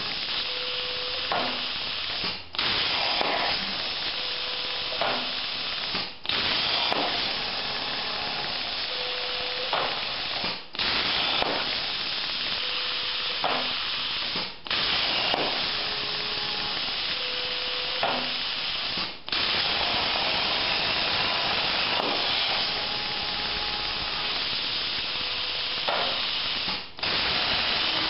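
CNC plasma cutting table: the plasma cutter runs with a loud, steady hiss, broken by brief drop-outs every four seconds or so. Short whining tones recur between the drop-outs, typical of the stepper motors moving the torch gantry.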